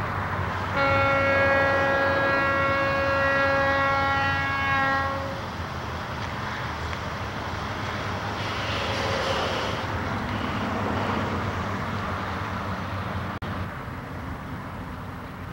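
Diesel locomotive air horn sounding one long chord for about four and a half seconds as the train approaches a road grade crossing, the warning for the crossing. It is followed by a steady low rumble.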